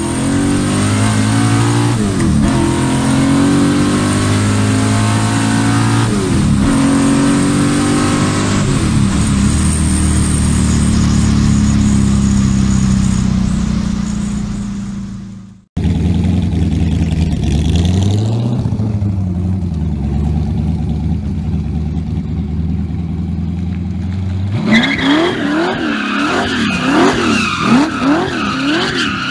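Small-block Chevy V8 in a Volvo 242, breathing through eight velocity stacks, heard from inside the cabin accelerating hard, the revs climbing and dropping at three upshifts. After a cut it runs at low revs. Then, with about five seconds left, it is revved up and down over and over while the rear tyres squeal in a slide.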